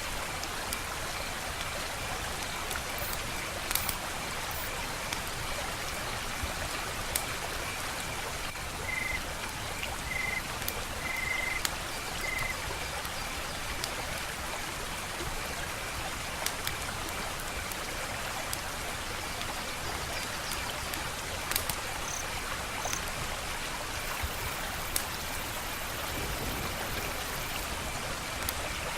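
Wood fire crackling, with scattered sharp pops and snaps over a steady hiss. A faint, steady, pulsing high trill of night insects runs underneath, with four short high chirps about a third of the way through.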